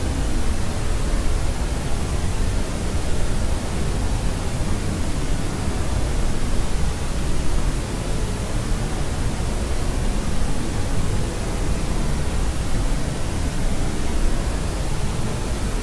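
Continuous white noise of the kind played to soothe a crying baby to sleep: an even, unchanging rush, weighted toward a deep low rumble.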